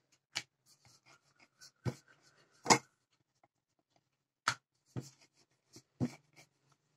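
Wooden rolling pin rolling and knocking on a round wooden board while thin flour dough is rolled out, with faint rubbing of the dough sheet between strokes. Scattered sharp knocks about a second apart, the loudest a little under three seconds in.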